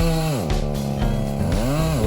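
Gas chainsaw cutting into a cedar trunk. The engine's pitch sags as the chain bites and loads it, then rises again near the end as it picks back up.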